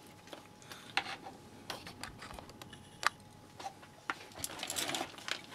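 Handling noise from a circuit board and a small metal tool: scattered light clicks and ticks, with a short scraping rustle near the end.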